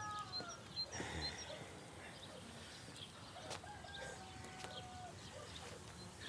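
Faint farmyard ambience: chickens clucking and a rooster crowing, with small birds chirping.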